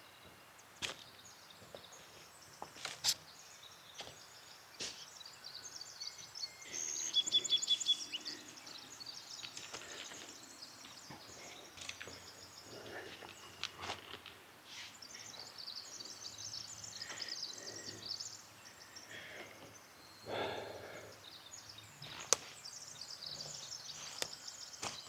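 Woodland ambience with small birds calling. About seven seconds in comes a loud rapid run of high pulsed notes lasting about a second, and there are scattered sharp clicks and knocks throughout.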